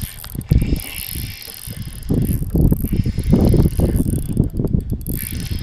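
Spinning reel being cranked to retrieve a swimbait, mixed with a low rumble of wind on the microphone that is heaviest in the middle stretch.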